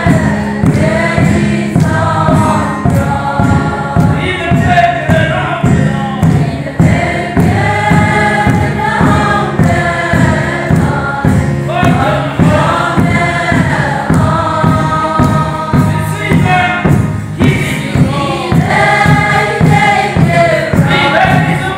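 Church congregation of men and women singing a hymn together from hymnbooks, one continuous sung passage.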